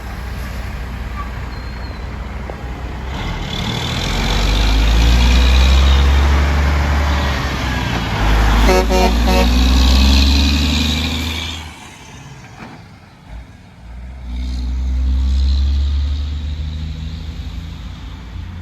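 A heavy truck drives close past with its diesel engine running loud, and a short horn blast sounds about nine seconds in. After a brief lull, a second truck passes near the end.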